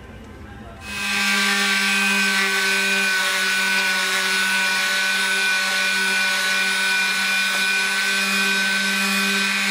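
Electric palm sander fitted with 40-grit paper, switched on about a second in and then running at a steady pitch as it sands weathered timber back to fresh wood.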